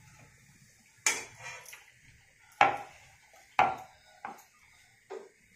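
Five or so sharp knocks and clatters of kitchen utensils against hard surfaces, about a second apart and irregular, each with a short ring after it.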